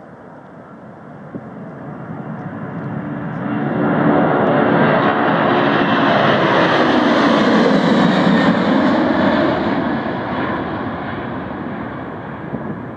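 Boeing 747's four turbofan engines at takeoff thrust, growing louder as the jet lifts off and climbs out close overhead, then fading as it pulls away. The roar peaks in the middle and drops in pitch as the aircraft passes.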